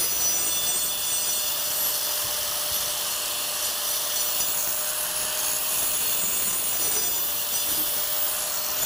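Handheld angle grinder cutting brick: a steady whine over gritty cutting noise, which stops abruptly at the very end.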